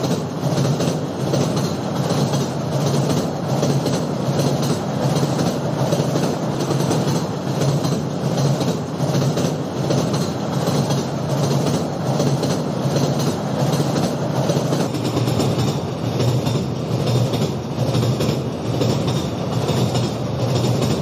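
Toy model freight train of container flatcars rolling past on plastic sectional track: a steady running noise of the wheels, with clicking as they cross the track joints.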